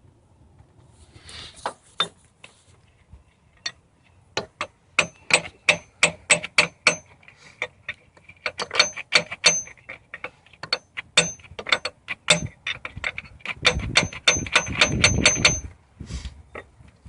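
Hammer tapping a new 2-inch steel cup freeze plug into the 4.0 straight-six engine block: sharp metal-on-metal strikes, about four a second, in several bursts with short pauses and a faint ring. The bursts grow heavier near the end.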